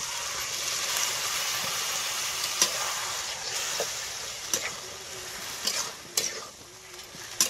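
Wet boiled taro leaves (kochu shak) sizzling in a hot iron wok, the hiss slowly dying down, while a flat spatula stirs and scrapes the pan with sharp knocks every second or so.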